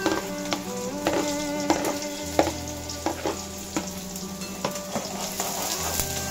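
Chopped onions sizzling as they fry in hot oil with cumin in a kadhai. A metal spoon scrapes them off the plate and stirs them in the pan, making regular sharp clicks about every half to three-quarters of a second.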